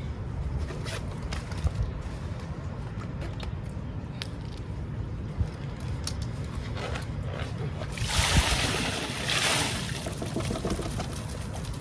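Water poured or tipped out in two short rushes near the end, over a low steady rumble.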